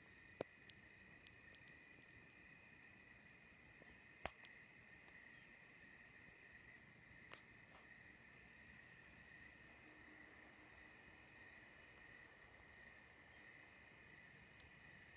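Faint chorus of night insects trilling steadily, with a few sharp clicks, the loudest about four seconds in.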